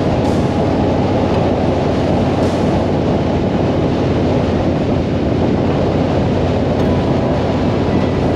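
Harley-Davidson V-twin motorcycle cruising at a steady speed on the highway: a constant engine rumble under heavy wind and road rush.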